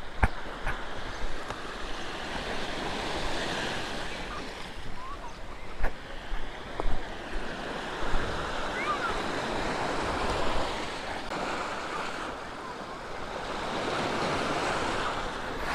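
Sea waves washing on the shore, the surf swelling and fading in slow surges, with wind on the microphone.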